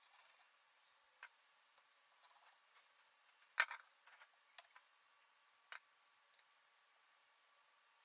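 Faint, scattered clicks and taps of a metal hard-drive bracket being fitted onto a 2.5-inch SSD by hand, the sharpest a little past three and a half seconds in.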